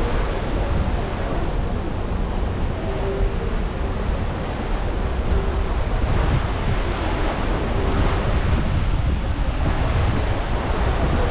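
Steady wind buffeting the microphone over the rush of the sea, heard from the deck of a cruise ship under way.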